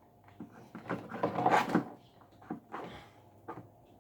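Clicks, knocks and a louder scrape of plastic fan parts and a zip tie being handled during a desk fan repair, the scrape about a second in.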